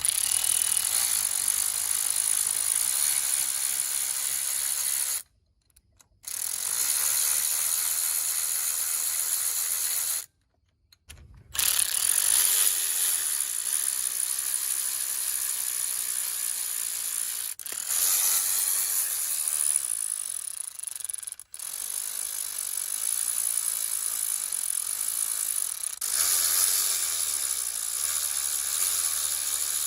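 Ratchet wrench working the cylinder bolts loose on a Honda TRX400 engine during teardown, a dense steady ratcheting that stops briefly twice, about five and ten seconds in.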